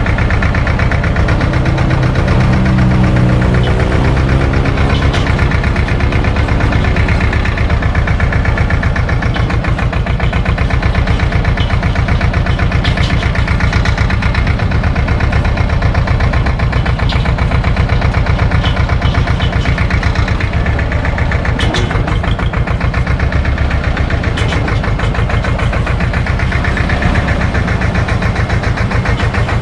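SAME tractor's diesel engine running, heard from the driver's seat as the tractor moves, with the engine note rising for a few seconds near the start.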